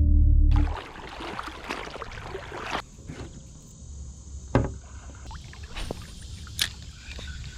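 A loud low hum cuts off under a second in. Then water sloshes and splashes around legs wading through a shallow creek in waders, with a few sharp knocks.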